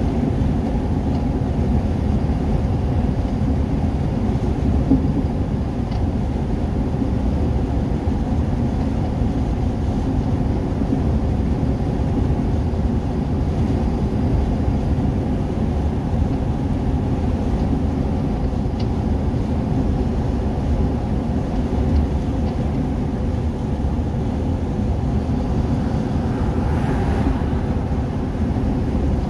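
Steady engine and tyre noise heard from inside a vehicle's cabin while it drives at road speed. Near the end another car overtaking adds a brief swell of noise.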